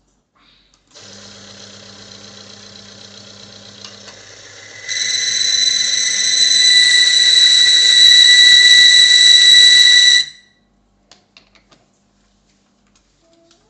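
Benchtop oil friction tester's electric motor starts and runs with a low hum; about four seconds later a loud, steady high-pitched squeal of metal rubbing on metal sets in as the weighted lever presses the test pieces together. The squeal and motor cut off suddenly about ten seconds in.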